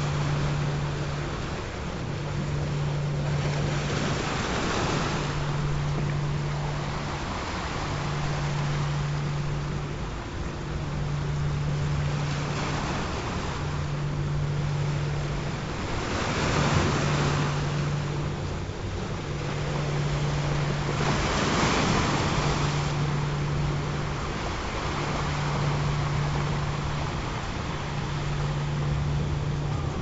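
Ocean surf washing in, with waves swelling every few seconds. Under it runs a steady low hum-like tone that breaks off briefly about every two and a half to three seconds, a tone track of the kind laid under meditation recordings.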